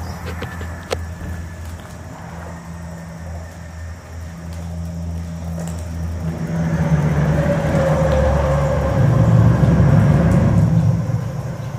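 A motor vehicle passing close on the road: a low engine hum that builds from about six seconds in, is loudest around ten seconds, then fades away near the end.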